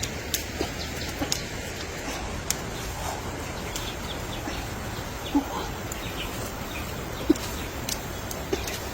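Chickens clucking now and then over a steady outdoor background, with a handful of short, sharp clicks or knocks scattered through.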